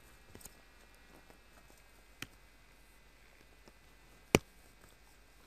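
A few sharp single clicks over a low steady hiss, one much louder than the rest about four seconds in.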